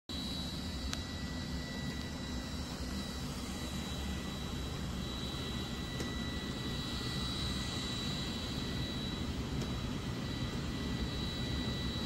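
Tikom L9000 robot vacuum running on carpet: a steady suction-fan whine with a high tone over an even rushing noise from the fan and brushes.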